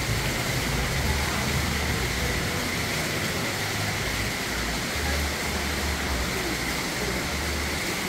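Steady city street ambience: a constant hiss with uneven low rumbling underneath, with no single distinct event standing out.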